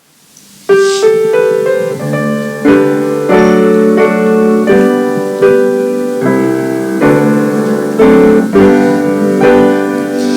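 Piano playing the introduction to a congregational hymn, starting with chords about a second in and going on in a steady rhythm of struck chords.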